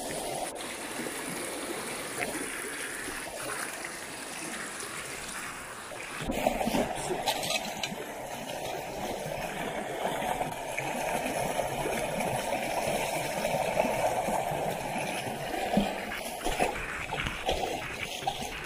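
Muddy rainwater runoff rushing along a dirt street, getting louder about six seconds in. Near the end, sandalled feet splash as they wade through the flow.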